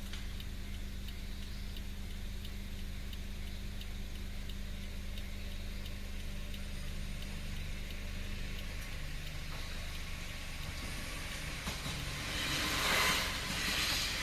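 Steady low drone with a level-crossing alarm ticking about twice a second, fading out in the first few seconds. About twelve seconds in, a KiHa 47 diesel railcar passes the crossing with loud surges of wheel and engine noise.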